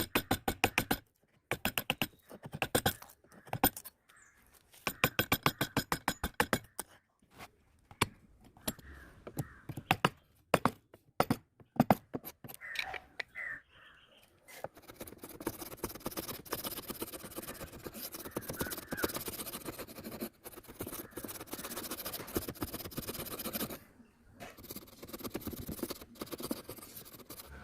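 Wood chisel paring into a wooden joint by hand: short bursts of rapid scraping clicks with silent gaps between, then a steadier soft scraping through the second half.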